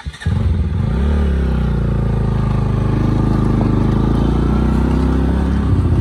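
Bajaj Pulsar NS200 motorcycle engine pulling away. It cuts in suddenly, the revs climb for about a second as the bike sets off, then it runs steadily under way.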